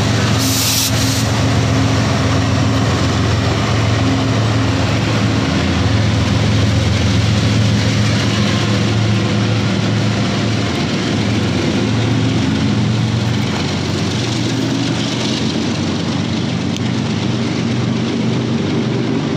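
Freight train of autorack cars rolling past close by: a loud, steady rumble of wheels on the rails with a constant low drone, and a short hiss about half a second in.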